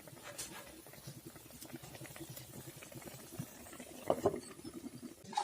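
Small-fish curry simmering in a covered pot over a low flame: faint, steady bubbling, with a couple of faint clicks.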